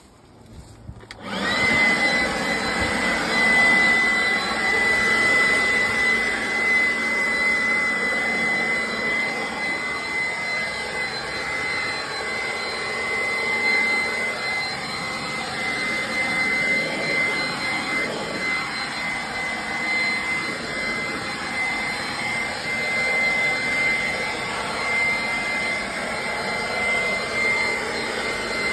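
Handheld leaf blower starting up about a second in, then running steadily: a rush of air with a high whine, blowing grass clippings off a footpath.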